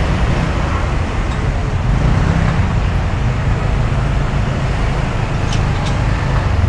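Steady road traffic noise on a busy city street, heard from a moving vehicle.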